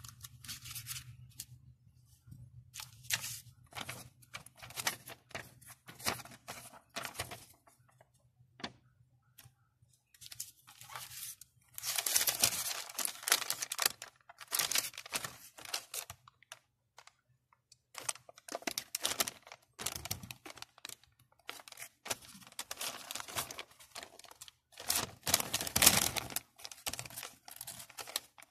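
Paper inserts rustling and crinkling as a creased printed sheet is unfolded and handled, in irregular bursts, the loudest about twelve seconds in and again near the end.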